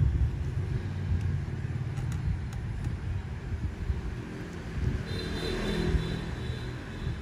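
Low, steady rumbling background noise, with a faint high tone joining about five seconds in.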